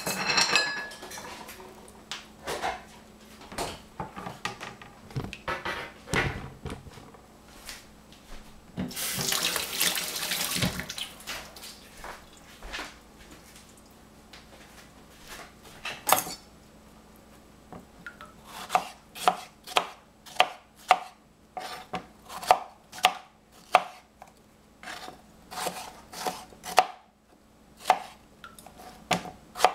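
Knife slicing fresh strawberries on a plastic cutting board: sharp taps about two a second through the second half. Earlier, tap water runs briefly into a stainless steel sink, with handling of a pan in the sink.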